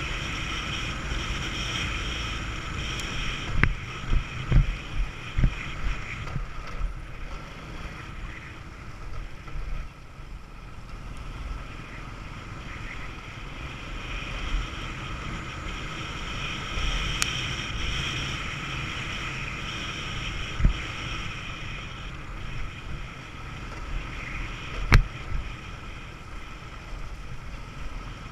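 Moped running steadily with wind buffeting the microphone and a low rumble from the rough dirt road. Sharp thumps as the bike jolts over bumps: a run of them about four to five seconds in, then single ones later on.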